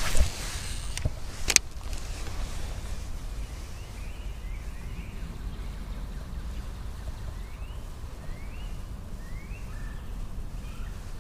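A couple of sharp clicks in the first two seconds as a baitcasting rod is cast, then a steady low wind rumble on the microphone, with a few faint, short rising bird chirps.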